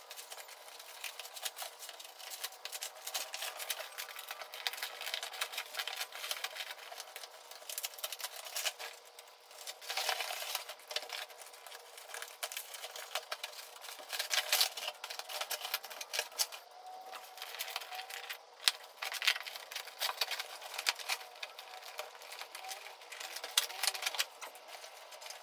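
Plastic packing film and bags crinkling and rustling as they are pulled, torn and cut off a packed electric bike: a run of rapid crackles with louder bursts every few seconds. The sound is thin, with no bass.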